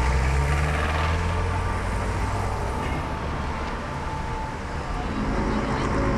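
Street traffic noise, with a motor vehicle passing close; its low engine rumble is strongest in the first two seconds, then eases into steady traffic noise.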